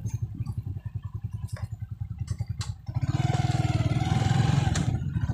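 Motorcycle engine running at low revs with an even pulse, then opened up about three seconds in, running louder with a higher whine as the bike rides along a dirt track.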